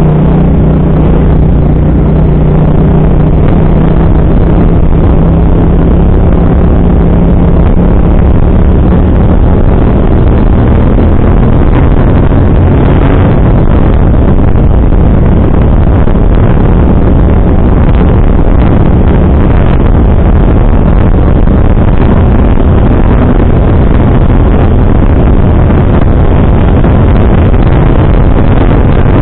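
Motorcycle underway on the road: its engine hum is plain for the first several seconds, then is mostly covered by steady wind rush on the microphone.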